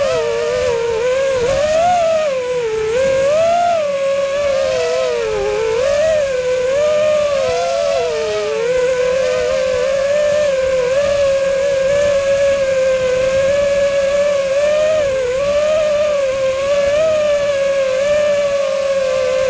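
FPV freestyle quadcopter's brushless motors (T-Motor F40 2306 1960kv on 6S) spinning Gemfan Hurricane 51466 props, a steady whine whose pitch keeps rising and falling with the throttle. Several close motor tones sound together.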